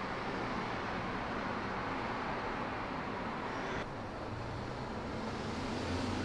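Steady rushing background noise with a low hum, changing abruptly at a cut about four seconds in.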